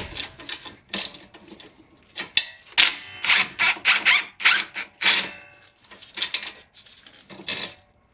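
Hand tools working the stabilizer link nut: a fast run of short metallic clicks and ratcheting rasps, thickest in the middle, as a 17mm wrench and socket loosen the nut.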